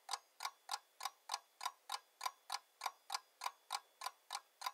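Clock ticking sound effect: a quick, even tick about three times a second.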